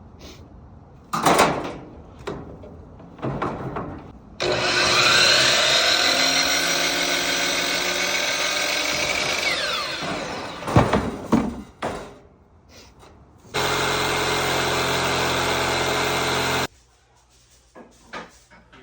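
An electric power saw cutting wooden trim boards. After a few knocks of the boards being handled, the saw runs loudly for about six seconds and winds down. More knocks follow, then a motor runs steadily for about three seconds and cuts off suddenly.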